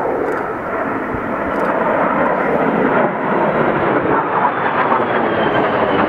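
Jet noise from JAS 39 Gripen fighters' single Volvo RM12 turbofans as the formation flies overhead, a steady rush growing louder, with a faint high whine falling in pitch in the second half.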